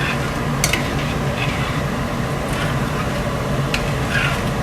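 A spoon scraping and clicking now and then against a saucepan as sugar and agar syrup is stirred on the hob, over a steady mechanical hum.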